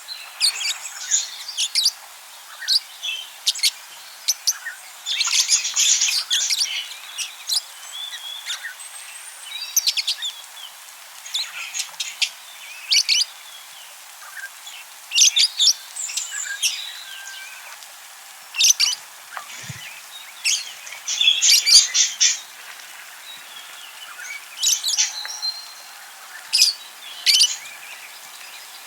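Budgerigars chirping and chattering in irregular bursts of short, sharp chirps over a faint steady hiss.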